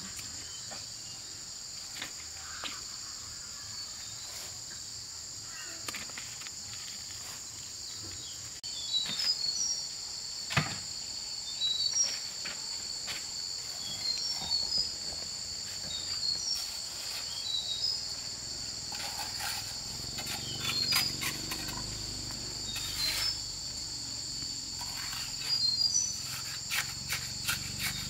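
Insects chirring steadily in two high bands. From about a third of the way in, short high chirps and scattered clicks and knocks join it.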